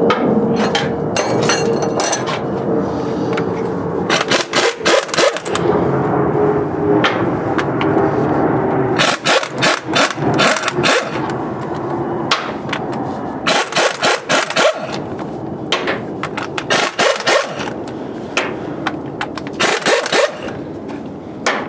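Impact wrench hammering in about five short bursts as it loosens the 15/16 in bolts on a screw compressor's head plate, over a steady machinery hum.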